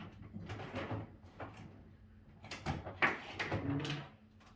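Handling noises from a TV and its cables being disconnected: a series of knocks, clicks and rustles, loudest about three seconds in.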